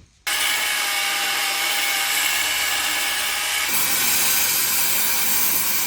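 Electric arc welding on truck steel: the arc strikes abruptly just after the start and runs as a steady sizzling hiss, turning brighter and hissier about two-thirds of the way through.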